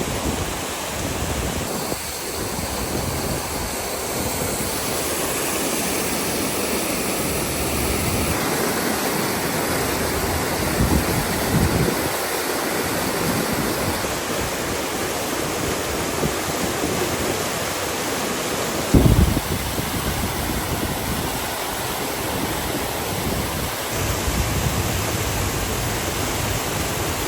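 Steady rushing of water, loud and even, with a few knocks and a sharper thump about two-thirds of the way through.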